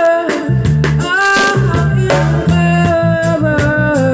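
Live band playing: a woman sings over an electric bass and a drum kit. The bass line is strong, with regular drum hits under the singing.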